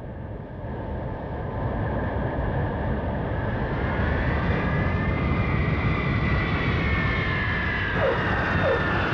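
Engine noise: a low rumble that swells over the first few seconds, with a high whine that holds and then slowly drops in pitch toward the end.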